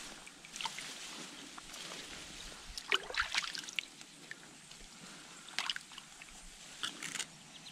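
Water trickling and sloshing in a shallow stream, with a few small splashes over the steady flow.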